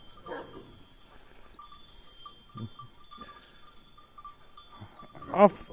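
Bells on the heifers clinking faintly and unevenly as the animals move and graze. A voice starts up near the end.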